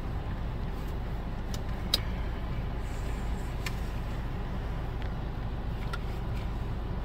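Steady low hum of an idling car heard from inside its cabin, with one sharp click about two seconds in.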